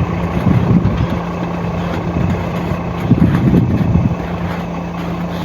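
Truck engine idling: a steady low hum with some uneven low rumble.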